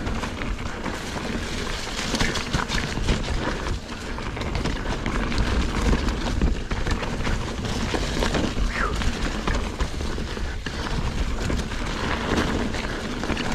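Mountain bike riding down a leaf-covered dirt singletrack: tires rolling and crunching through fallen leaves, with the bike's chain and frame rattling over bumps and wind rumbling on the microphone.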